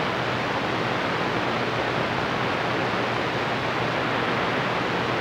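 CB radio receiver hissing with a steady wash of static from the 11-metre band, no voice coming through.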